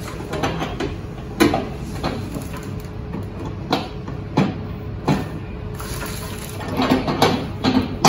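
A glass microwave turntable plate being set onto its roller ring and pressed down onto the drive coupler, giving scattered clinks and knocks, with a quick run of them near the end.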